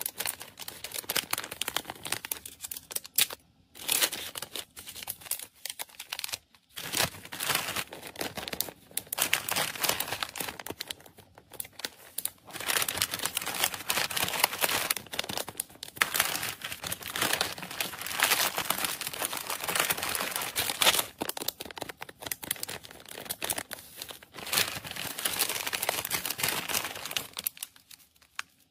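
Plastic packaging bags crinkling and rustling as they are handled, in long spells of dense crackle broken by a few short pauses.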